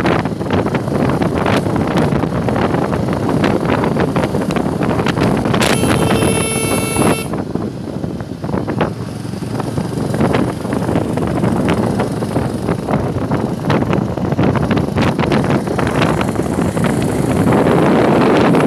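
Heavy wind buffeting on the microphone of a camera carried on a moving vehicle, with road and engine rumble underneath. About six seconds in, a vehicle horn sounds once for about a second and a half.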